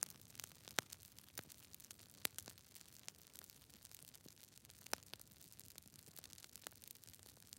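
Fire crackling: irregular sharp pops and snaps over a faint soft hiss, with a few louder pops standing out about a second in, a little after two seconds, and near five seconds.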